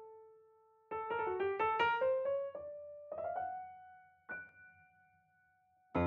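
Background piano music: a quick run of notes about a second in, then slower notes left to ring and fade, with a single note struck near the middle dying away.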